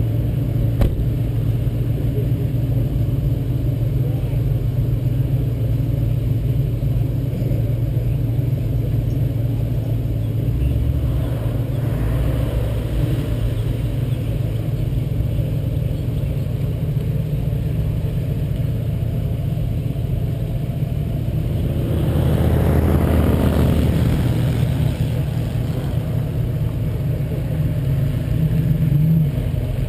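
Turbocharged 2007 Mustang V6 idling steadily with other cars driving slowly past. About 22 seconds in, a passing car gets louder for a couple of seconds.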